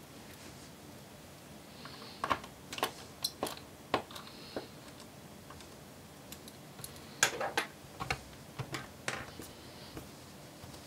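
Sharp clicks and taps as a laptop's bottom cover is pressed down around its edges and its clips snap into place, in two bursts of several clicks.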